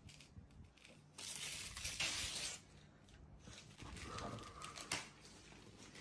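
Gift-wrapping paper being torn off a cardboard box. One long rip about a second in is the loudest part, and a second stretch of tearing and rustling follows near the middle.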